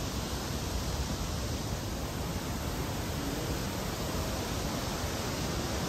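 Steady rushing of Montmorency Falls, a large 83-metre waterfall: an even, unbroken noise.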